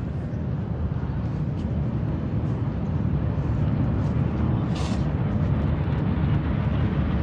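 Steady low rumbling noise that slowly grows louder, with a brief sharp crackle about five seconds in.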